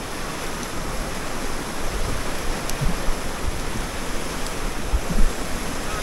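Steady rushing of a waterfall's falling water, with a few low bumps of wind on the microphone.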